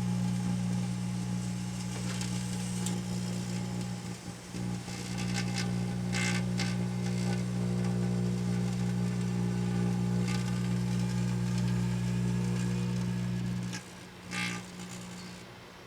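A 700-watt Hamilton Beach microwave oven running with a loud, steady hum, with sparklers burning inside: a hiss and a few sharp crackles over the hum. The hum cuts out near the end, comes back for a moment, then stops.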